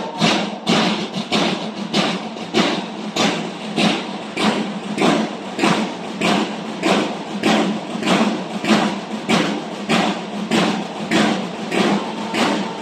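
Banda de guerra snare drums playing a steady marching beat on their own, about three strokes a second. A bugle note comes in near the end.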